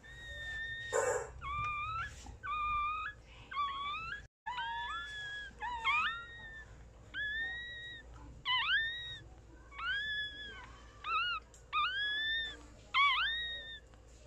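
Newborn mixed-breed puppy crying: a string of high-pitched squeals, about one a second, each rising quickly and then held.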